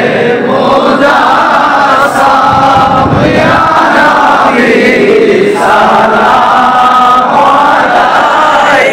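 A crowd of men chanting together in unison, an Islamic devotional chant sung in long, drawn-out phrases.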